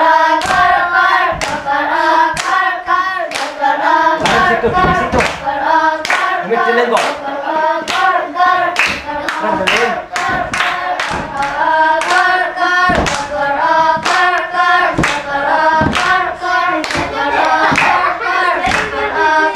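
A group of children singing a song together while clapping their hands on a steady beat.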